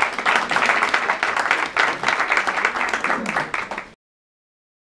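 Audience applauding, a dense run of many hands clapping that cuts off suddenly about four seconds in.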